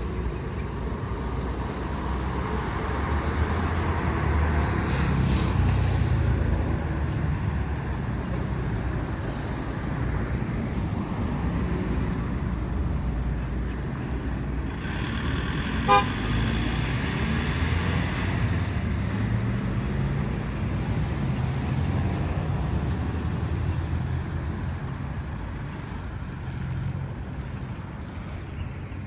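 Street traffic: cars passing with a steady low rumble of engines and tyres that swells and fades, and a single sharp click about halfway through.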